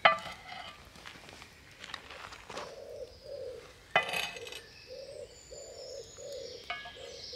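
A pigeon cooing, a run of short, low coos about twice a second, starting a couple of seconds in. A few metal clinks of a spatula against the frying pan come with it, the loudest about four seconds in.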